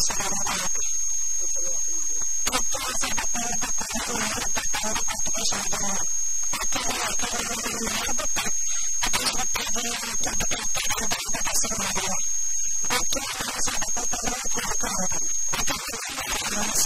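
A woman's voice speaking in phrases with short pauses, picked up through news microphones, over a constant high-pitched whine and hiss on the recording.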